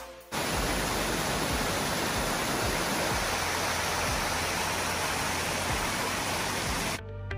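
Steady rushing of a small waterfall cascading down granite rocks, cutting off abruptly near the end.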